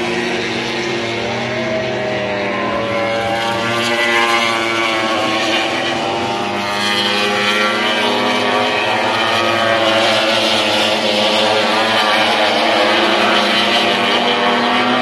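MotoGP racing motorcycles running at high revs along the circuit, the notes of more than one bike heard at once, their pitch rising and falling as they go by.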